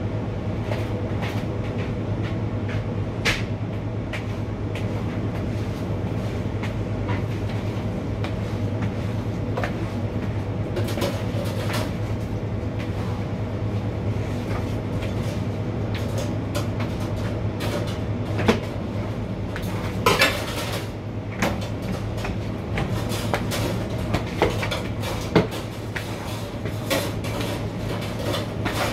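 Steady low hum of kitchen equipment, with scattered knocks and clatters from floor cleaning that come more often and louder in the second half.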